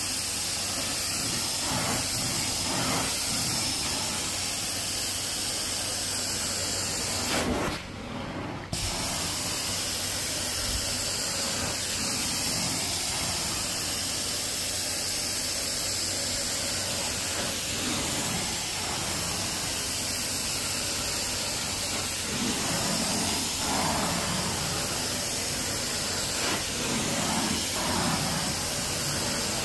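Carpet-cleaning extraction wand hissing steadily as it sprays and sucks water through the carpet. The hiss briefly drops about eight seconds in.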